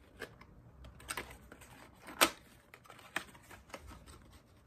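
Packaging being handled and opened by hand: irregular small clicks, taps and rustles, with one sharp click a little over two seconds in.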